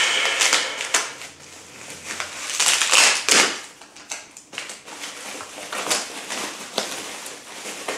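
Plastic wrapping and paper crinkling and rustling in someone's hands, in irregular bursts, loudest about three seconds in.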